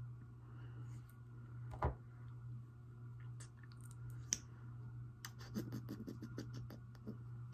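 Faint handling noise of makeup being applied: a few separate small clicks, then a quick run of small clicks and taps near the end, over a steady low electrical hum.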